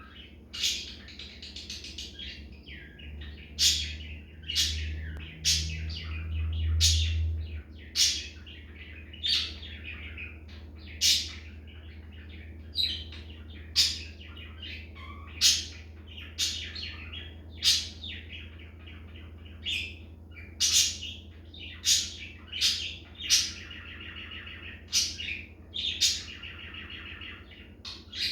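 Budgerigar singing: a chattering warble broken by sharp, high chirps about once a second. A low steady hum sits underneath, louder for a few seconds near the start.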